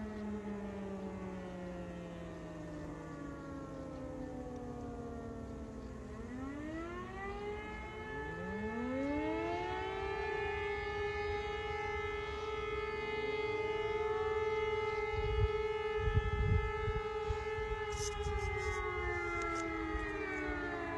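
Civil defence motor sirens on their monthly test. A falling tone winds down at first, then two sirens wind up a couple of seconds apart, hold a steady wail for about eight seconds, and begin winding down near the end. A few dull low thumps come about two-thirds of the way through.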